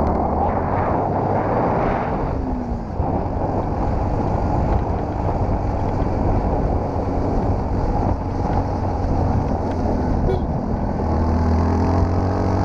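Yamaha WR-X supermoto's single-cylinder engine running at a steady, low, fairly even speed while riding a gravel track, with wind noise rushing over the microphone.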